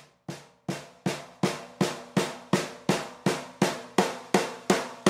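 Ludwig Accent Series Junior 12-inch kids' snare drum, on its factory heads with the snare wires sitting crooked, struck with sticks in even single strokes, nearly three a second. The hits get louder over the first second and then stay even, each ringing on with a pitched tone.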